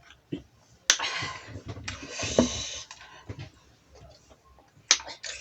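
Close-up eating sounds: a sharp click about a second in, then about two seconds of noisy eating, and another click near the end.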